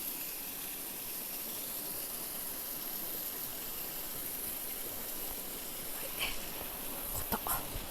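Steady rushing of flowing river water, with a few short clicks and knocks near the end.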